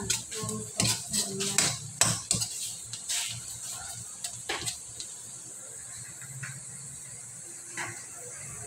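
Metal spoon scraping and clinking against a wok while minced garlic is stirred in hot oil. The spoon clatters repeatedly for the first few seconds, then there is only a low, steady frying sound with an occasional tap.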